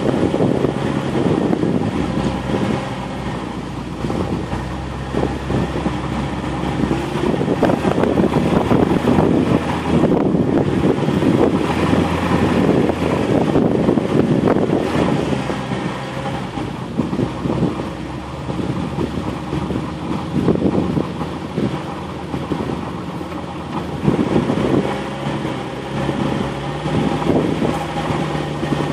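An off-road vehicle's engine running as it drives along a rough, sandy dirt trail, with the body rattling and knocking over the bumps. The engine note shifts with the throttle.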